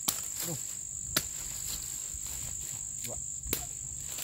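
Steady high-pitched drone of insects, with a few sharp cracks of wood as branches are cut or broken off for firewood.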